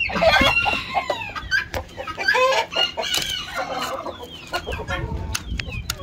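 Fancy chickens and roosters clucking and calling close by. The calls are densest in the first second and again about two to three seconds in.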